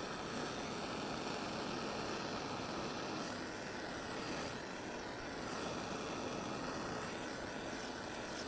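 Handheld gas torch burning with a steady rushing hiss as it heats shotgun barrels to flow soft solder under the rib.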